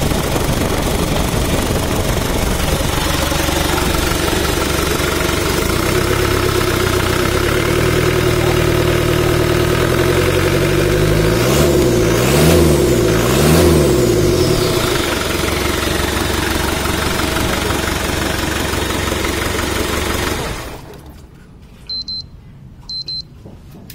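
Land Rover 300Tdi 2.5-litre four-cylinder turbodiesel idling on test, revved up and back down twice in quick succession about twelve seconds in. About 21 seconds in the engine shuts off, and two short high beeps follow.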